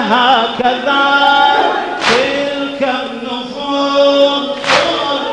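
Men chanting a Shia latmiya lament, one lead voice with the crowd holding long notes. The crowd's hands strike bare chests in unison twice, about two and a half seconds apart, each strike a sharp slap that rings on.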